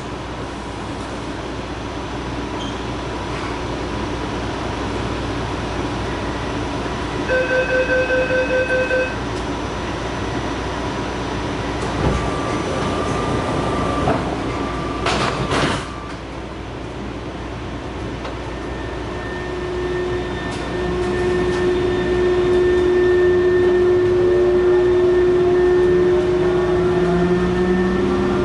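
Taipei Metro Matra VAL 256 rubber-tyred train: a steady running rumble, a pulsing beeping chime about seven seconds in and a few sharp knocks around fifteen seconds. From about twenty seconds a steady hum sets in with rising whines from the traction drive as the train speeds up, the inverter noise the uploader calls abnormal.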